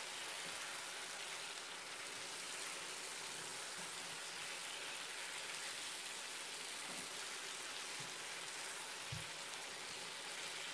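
Chicken and sweet pumpkin pieces sizzling in oil in a frying pan, a steady hiss, with a soft knock about nine seconds in.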